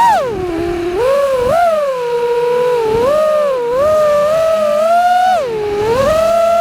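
FPV quadcopter's brushless motors and propellers whining, the pitch rising and falling with the throttle. It holds level for stretches, dips near the middle and again near the end, then climbs back up.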